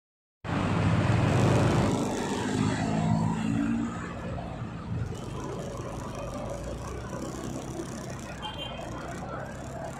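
Motor scooter pulling away from a stop and speeding up in city traffic: engine and traffic noise with a rising engine note, loudest in the first few seconds, then settling into a steadier, lower drone.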